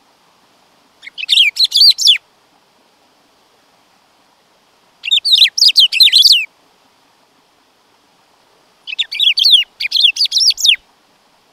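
Black-throated saltator (bico-de-pimenta) singing: three bursts of rapid, high, down-slurred notes a few seconds apart, each a second or more long, the last one a double phrase.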